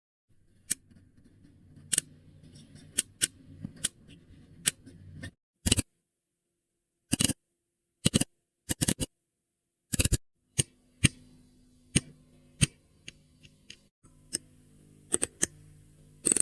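AI-generated 'click' sound effects from ElevenLabs played back one after another: sharp, irregularly spaced clicks, some single and some in quick pairs. Several sit over a faint low hum, and short silences fall between the clips.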